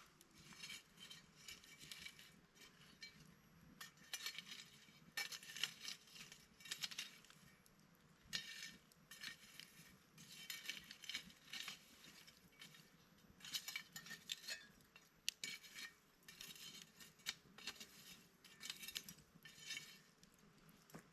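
Footsteps crunching in snow, one step about every second at a steady walking pace.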